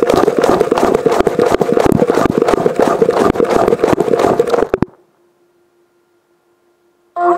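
Washing machine drum turning with its wash load, heard from inside the drum: dense, irregular clattering and knocking that stops about five seconds in and starts again abruptly near the end.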